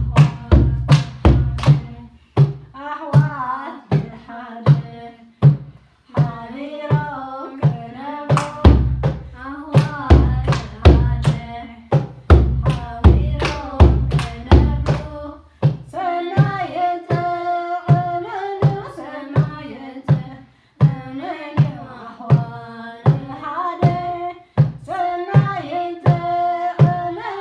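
Eritrean Orthodox mezmur (hymn) sung by children's voices, with hand claps and a steady drum beat keeping time. The drumming is heaviest in the first two seconds and again in the middle, then lighter while the singing carries on.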